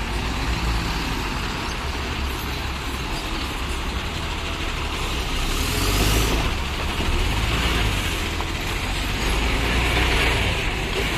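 Heavy multi-axle diesel cargo truck engine running as the truck rolls slowly past close by, with a steady low rumble and a brief hiss about six seconds in.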